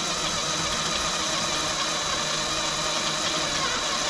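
Power drill running slowly and steadily as a 5/16 inch bit cuts through the aluminium wall of a bicycle rim, enlarging the Presta valve hole to take a Schrader valve.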